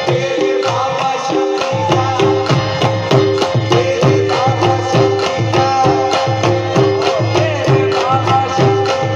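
Live qawwali music: tabla playing a steady rhythm under a held harmonium tone, with the qawwals' singing voices.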